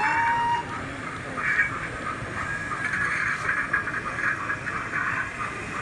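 Steady indistinct hubbub of a crowded exhibition hall, with a brief whistle-like tone right at the start.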